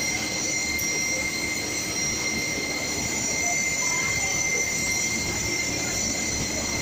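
Steady factory-floor machinery noise, a constant din with several unbroken high-pitched whines over it, from the machine-shop equipment around an automated servo-driven handling cell.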